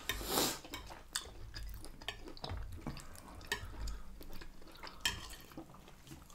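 Knife and fork scraping and clinking on a ceramic dinner plate as steak is cut, in many short, sharp clicks.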